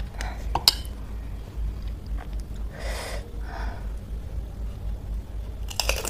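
Close-up sounds of a person eating pani puri: chewing with a few sharp clicks early on and a short noisy burst midway. Near the end comes a cluster of loud, crisp crunches as a puri shell is bitten.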